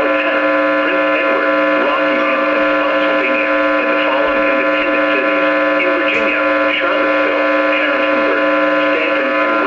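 A broadcast voice reading a weather alert, half buried under a loud, steady electrical whine made of several held tones, the sign of a poor, noisy radio signal.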